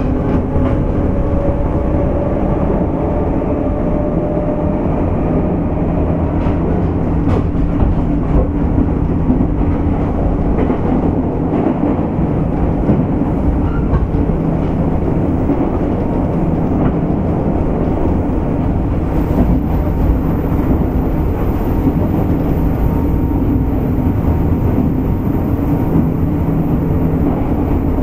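Running sound heard aboard a JR West 201 series chopper-controlled electric train, motor car MoHa 200-247: a steady rumble of wheels on rail under a motor hum whose tones come and go, with occasional rail-joint clicks. A faint high whine joins in about two-thirds of the way through.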